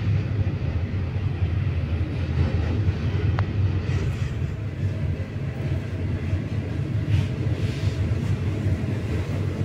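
Freight train cars rolling past close by: a steady low rumble of wheels on the rails.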